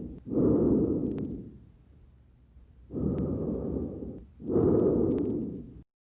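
Lung breath sounds of pneumonia heard through a stethoscope on the chest: a low, noisy sound of breathing in and out, in two breaths with a quiet pause between them, with a few sharp clicks over the breaths. It cuts off abruptly near the end.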